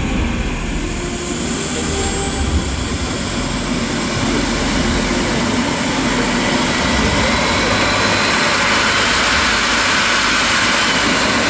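Twin Lambert Kolibri model jet turbines of a large scale model jet running on the ground: a steady rush of exhaust with a high whine that climbs slowly in pitch as the turbines spool up, a second rising whine joining about seven seconds in.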